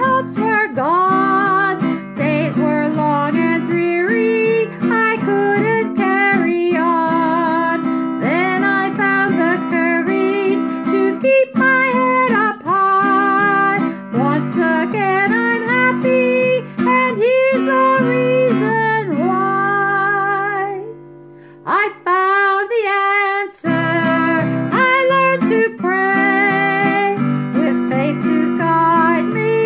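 A woman singing a song while strumming an acoustic guitar. About twenty seconds in, the guitar rings out and stops, she sings a short phrase alone, and the strumming comes back in.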